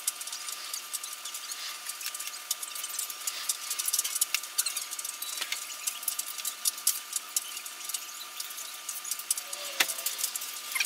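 A cloth wiping and rubbing over a car's body surface while cleaning with a spray-on waterless wash, a continuous scratchy rubbing full of small clicks, with a light knock near the end.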